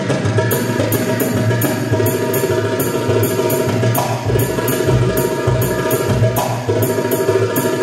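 Live Egyptian shaabi band music: keyboard playing held melody tones over a steady hand-percussion beat with tambourine-like jingles, about three strokes a second.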